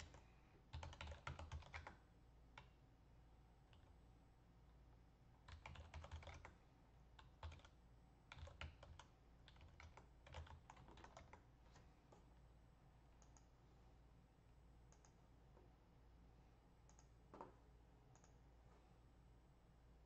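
Faint typing on a computer keyboard: several short bursts of keystrokes as terminal commands are entered, then only an odd single click.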